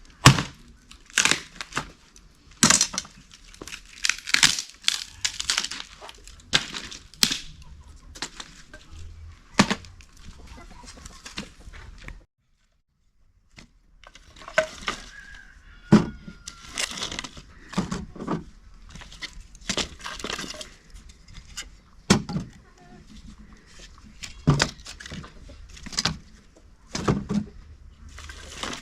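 Irregular sharp cracks and knocks, one every second or two, with a short silent break near the middle. A chicken clucks faintly now and then.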